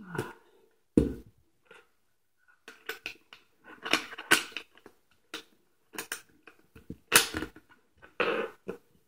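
A racing helmet and HANS device being handled and fitted together: irregular knocks, clicks and rustles, with a sharp knock about a second in and louder clusters around the middle and near the end.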